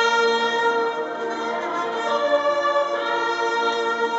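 Massed military band playing a slow passage of long held chords, which change about a second in and again about three seconds in.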